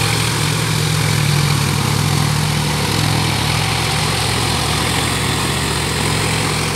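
John Deere tractor's diesel engine running steadily as the tractor drives on iron cage wheels through a flooded paddy field, puddling the mud.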